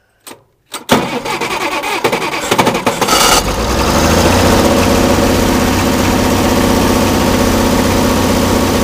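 Oliver 770 Industrial tractor engine started: after a click, the starter cranks it for about two and a half seconds, then it catches and settles into steady running.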